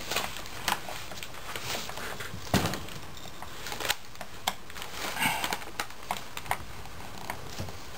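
Small metal clicks and scrapes of a hand tool working the spring-loaded reverse servo retaining clip in a 4L80E transmission case, irregular and spaced out, with one sharper click about two and a half seconds in.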